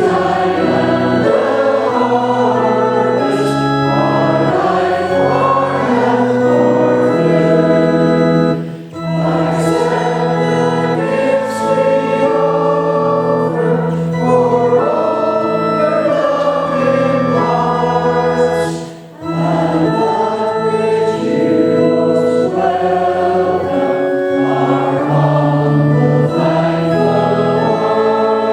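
A hymn sung by many voices with organ accompaniment, in long held lines with short breaks between phrases about every ten seconds.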